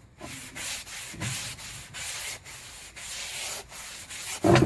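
Fine-grit sanding sponge rubbed back and forth along a bare hickory axe handle in quick, repeated strokes, with one louder thump near the end.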